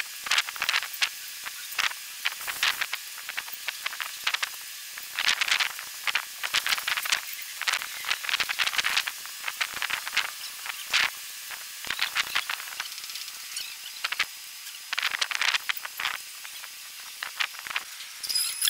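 Thin metal reflector strips scraping and sliding against the trough's frame as they are fitted by hand: many short, irregular hissing scrapes. A few high squeaks come in near the end.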